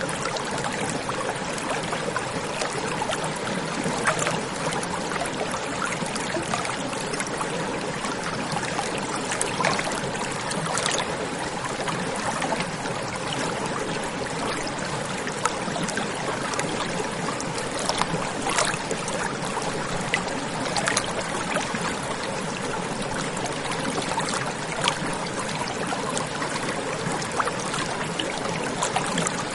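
A stream of running water flowing steadily, with small splashes and gurgles standing out now and then.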